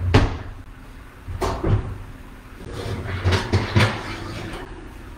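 Oven door being opened and a metal baking sheet pulled out off the oven rack: a few sharp knocks and clatters, several of them close together about three and a half seconds in.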